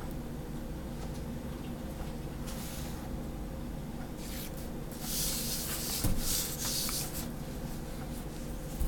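Fine-tip pen drawing straight lines on paper along a plastic ruler: a couple of short scratchy strokes, then a longer one of about two seconds starting about five seconds in. A soft knock comes partway through the long stroke and another at the very end.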